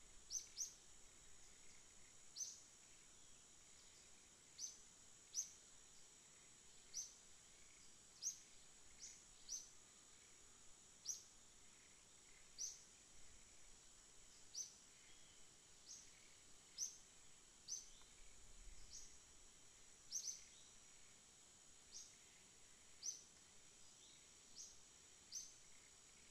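Faint forest ambience: a steady high-pitched insect drone, with a bird giving short, high, falling chirps every second or two.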